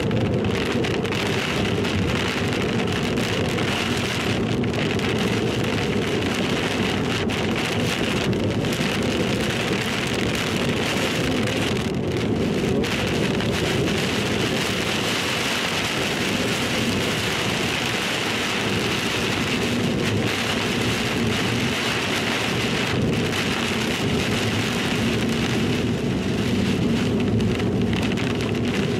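Steady heavy rain beating on a moving car's windshield and body, heard from inside the car during a thunderstorm downpour, with constant road and wind noise beneath it.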